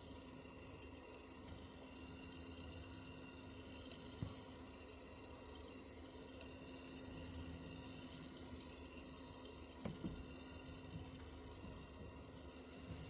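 Cooling fan at a heat sink running with a steady airy hiss over a low, even hum, with a couple of faint ticks. The owner hears a rattle coming from the heat sink and fan area.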